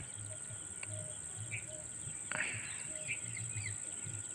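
Rural dusk ambience: a steady high-pitched drone of crickets and other insects, with short bird chirps scattered through it.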